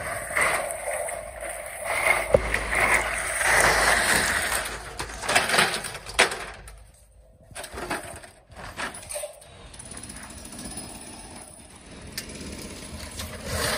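Metal clanks and rattles as a steel roller-shutter axle with its end brackets is handled and set down on the corrugated steel shutter slats: irregular knocks, with a quieter spell a little past the middle.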